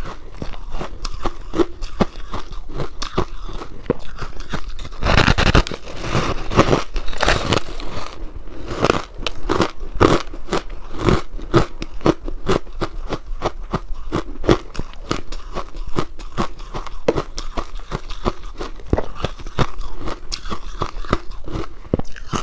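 Biting and chewing a frozen pink buckwheat ice cake: dense, irregular crunching and crackling of the icy block, loudest about five seconds in.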